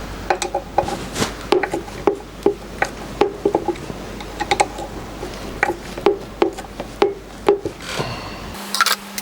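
Irregular light clinks and knocks of small metal parts and hand tools being handled while fitting the motor bracket, some with a short ring. Near the end a steady low hum comes in.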